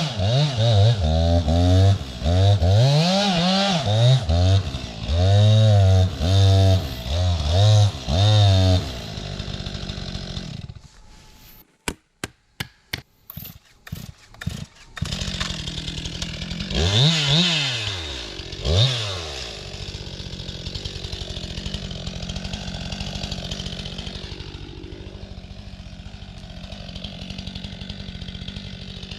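STIHL MS 261 two-stroke chainsaw revved in a series of short bursts, its pitch rising and falling with each. After a quiet gap broken by a few sharp clicks, it revs twice more, then settles to a steady idle.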